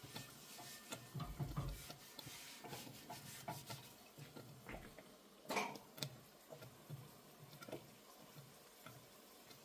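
A scrub sponge rubbing across a stovetop griddle to wipe up a spill, in short irregular strokes with a few light knocks, and one sharper click about five and a half seconds in.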